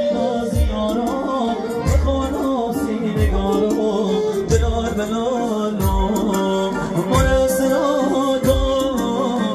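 Folk dance music played loud over loudspeakers: a melody with a singing voice over a steady, heavy drum beat.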